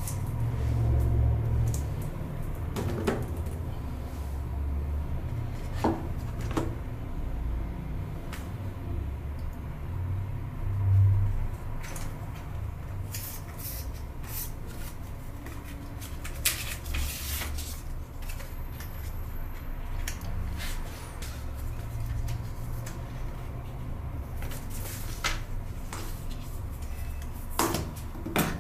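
Unboxing handling sounds: cardboard box parts and a paper documentation sleeve rustling, sliding and tapping on a desk, with scattered short clicks over a low background rumble.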